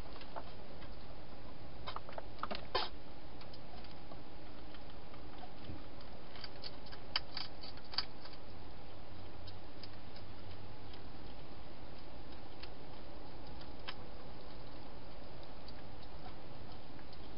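Wild hedgehog eating, heard as scattered small clicks and crunches: a cluster about two to three seconds in and another around seven to eight seconds, with a few single clicks later. Steady background hiss throughout.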